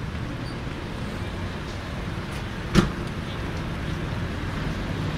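Steady low rumble of city street traffic, with one sharp knock a little under three seconds in.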